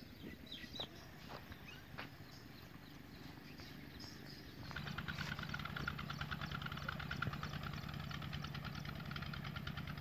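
An engine starts running steadily with a rapid, even beat about halfway through, and keeps going. Before that there are only a few faint bird chirps and clicks.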